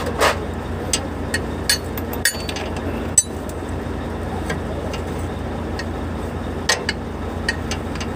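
Hand tools and metal parts clinking against each other while a truck's air dryer is being worked on. There are scattered light metallic clicks and taps, a dozen or so, over a steady low hum.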